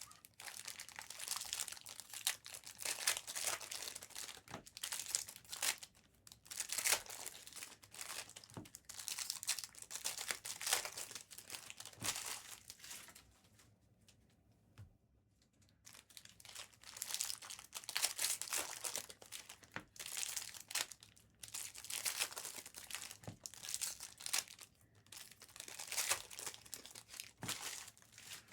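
Plastic wrapping on trading card boxes and packs crinkling and tearing in repeated bursts, with a short lull about halfway through.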